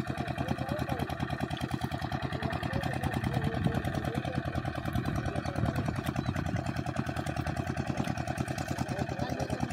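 A small engine running steadily with a rapid, even pulse.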